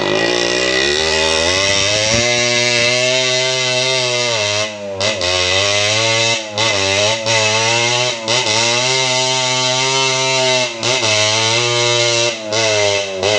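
Yamaha RX100's two-stroke single-cylinder engine running open, with its silencer removed, its note rising and falling under load and dropping away briefly about five times as the throttle is eased.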